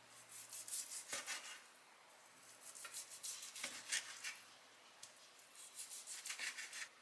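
Kitchen knife sawing back and forth through a cooked steak and scraping on a plastic cutting board, in three bouts of quick strokes with short pauses between.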